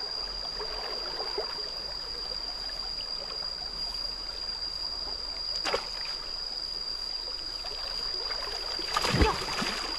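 Stream water flowing steadily, with a steady high-pitched tone over it. A short knock comes about halfway, and near the end a wooden stick splashes into the water.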